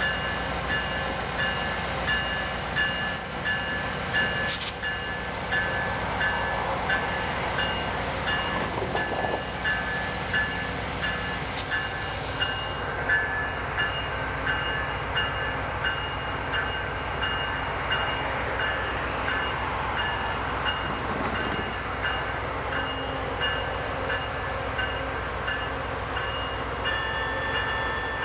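Railroad crossing bell ringing in steady, evenly spaced dings at an active grade crossing, over the low rumble of an approaching Amtrak diesel passenger locomotive.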